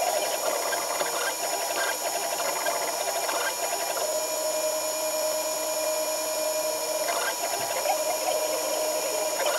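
Enclosed FDM 3D printer running, its stepper motors giving a steady whine that breaks into short chirps and ticks as the print head changes direction. The print is carrying on over a nut that has just been pressed into a blind hole in the part.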